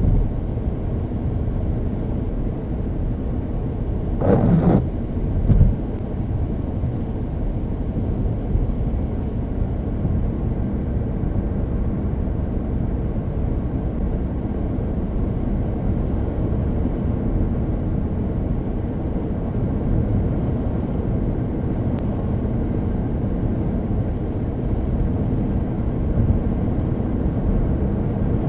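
Steady road and engine noise of a 2012 Chevrolet Cruze driving, with its 1.4-litre turbocharged Ecotec four-cylinder and six-speed automatic, heard from inside the cabin. A brief louder noise breaks in about four seconds in.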